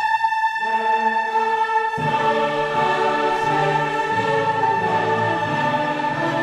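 Orchestral music with a choir holding a sustained chord; lower instruments come in about two seconds in.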